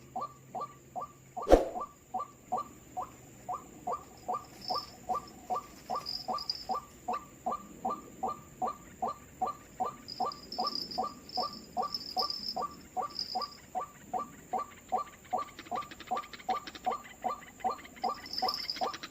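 White-breasted waterhen (ruak-ruak) call repeated in a steady rhythm, about two and a half short notes a second. A single sharp knock sounds about one and a half seconds in.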